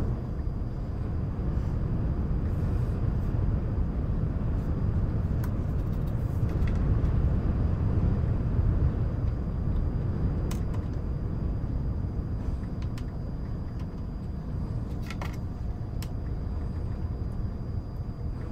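Steady low, rumbling wind noise with a soft hiss over it, and a few light, scattered clicks of jigsaw puzzle pieces being handled.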